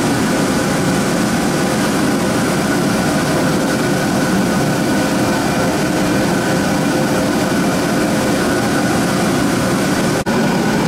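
Steady rushing roar of greenhouse soil steaming: steam being driven under a plastic steam sheet to disinfect the soil.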